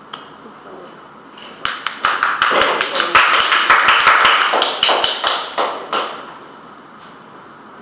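A small audience clapping: a quick run of many hand claps that starts a little over a second in, grows busiest in the middle and dies away about six seconds in.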